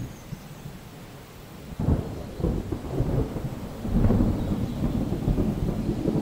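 A deep rolling rumble of thunder that starts about two seconds in and swells to its loudest around four seconds, then rolls on.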